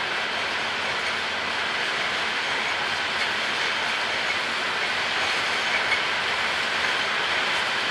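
Loaded freight hopper cars rolling past: the steady noise of steel wheels running on rail, with a few faint clicks.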